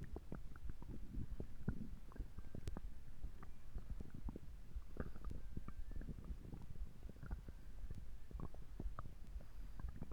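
Stomach gurgling and rumbling, a rapid, irregular series of small pops and gurgles over a low rumble.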